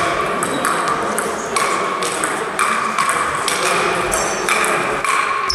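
Sandpaper table tennis rally: the ball clicks off sandpaper-faced bats and the table at about two hits a second.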